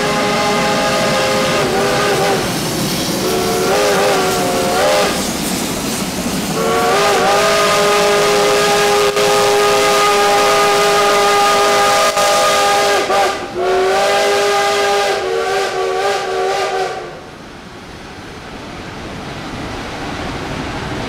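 Steam locomotive's multi-note chime whistle blowing a series of blasts: a couple of short, wavering toots, then two long blasts of several seconds each, over the steady hiss and exhaust of the passing train. The whistling stops about three-quarters of the way through, leaving the train's running noise.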